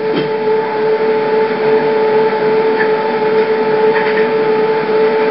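Steady electrical hum with hiss, holding one pitch throughout.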